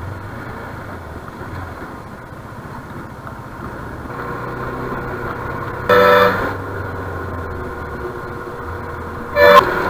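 KTM Duke 390 single-cylinder engine running under way with wind noise on the camera. A vehicle horn blares briefly about six seconds in, and again just before the end.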